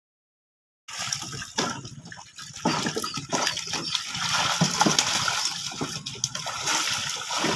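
Water splashing and gushing, starting abruptly about a second in, with scattered sharper splashes.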